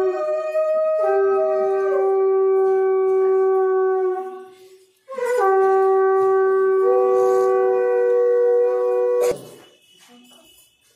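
Conch shell (shankha) blown in two long, steady blasts, each note stepping between two pitches. The second blast starts about five seconds in and stops abruptly a little after nine seconds.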